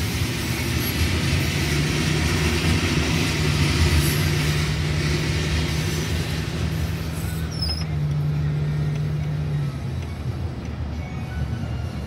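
Car driving, heard from inside the cabin: steady engine and road noise with a low hum that fades about ten seconds in.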